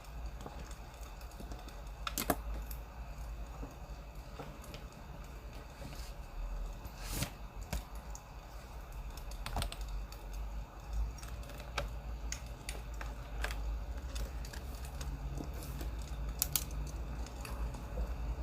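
Crackling wood fire: sparse, irregular sharp pops and snaps over a steady low rumble.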